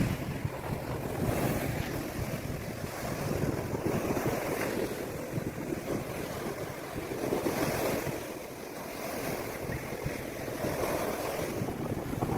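Sea surf breaking and washing on the beach in repeated surges, with wind buffeting the microphone.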